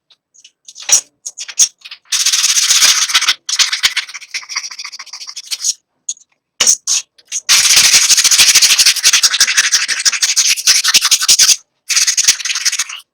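Abrasive scrubbing on a hand saw's steel blade during rust removal, in long bursts of back-and-forth strokes with short pauses between them.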